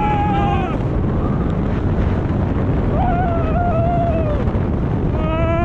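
Heavy wind rushing and buffeting on the microphone as the Hyperion roller coaster train runs along the track at speed, with riders screaming over it: a long, slightly falling scream in the first second, another about three seconds in, and a rising one near the end.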